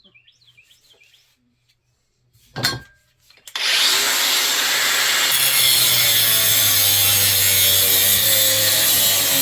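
A power tool starts about three and a half seconds in and runs steadily, cutting through a rusted ceiling fan part that would not come off. A short knock comes just before it starts.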